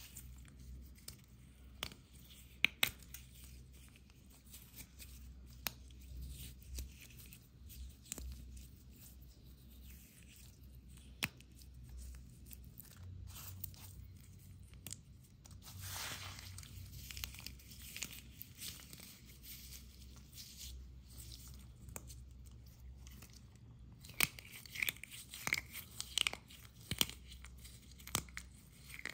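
Brittle broken slate pieces crunching and crackling as fingers crush them into a mush, with scattered sharp clicks and a run of louder cracks near the end.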